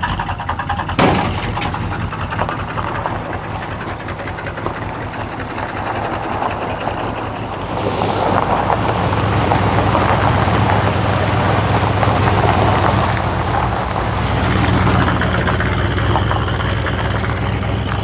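An old Ford pickup truck's engine running as the truck drives along a gravel lane. The engine and the crunch of the tyres on gravel get louder from about halfway through as the truck comes close. There is a single sharp knock about a second in.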